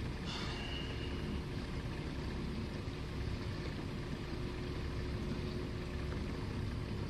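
Steady low rumble of a boat's engine running, with a faint constant hum. A brief high-pitched tone sounds for about a second near the start.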